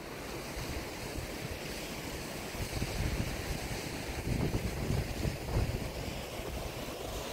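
Wind buffeting the microphone in low, rumbling gusts over a steady rushing hiss of outdoor wind, swelling a little past halfway through.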